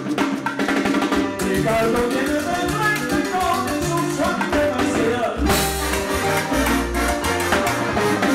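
Live salsa band playing: congas, timbales and bongos under a horn section of trombones and trumpets. The full band comes in about a second and a half in, and a heavy bass line enters about five and a half seconds in.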